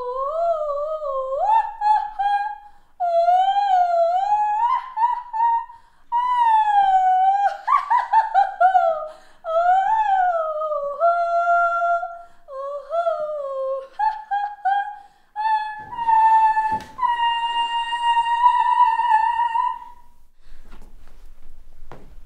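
A woman singing in a high, warbling operatic voice, sliding up and down between notes in short phrases and ending on a long held high note. The singing is meant to be comically unbearable.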